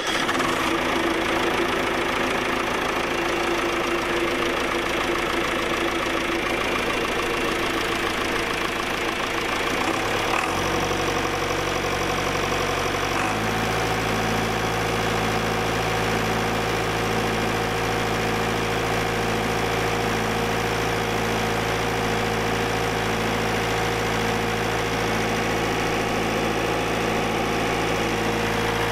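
John Deere 2630's four-cylinder diesel engine running steadily, its speed stepping up twice, about ten and thirteen seconds in, then holding at the higher speed.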